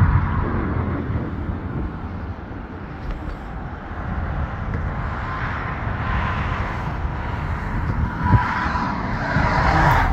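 Road traffic on the bridge: a steady rumble of car engines and tyres, swelling as vehicles pass near the end.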